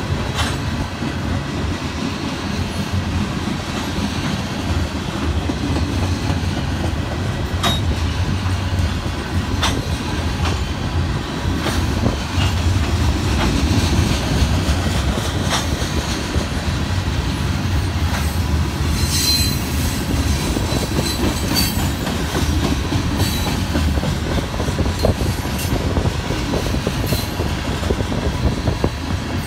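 Freight train's covered hopper cars rolling past close by: a steady low rumble with sharp wheel clicks over the rail joints. A brief high-pitched wheel squeal comes about two-thirds of the way through.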